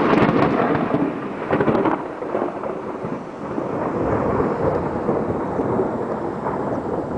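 Thunder rumbling over rain. It is loudest and crackling in the first two seconds, then eases into a lower, steadier rumble.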